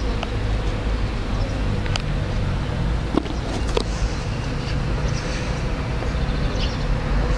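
Street ambience: a steady low rumble of town traffic, with a couple of sharp knocks a little after three seconds in.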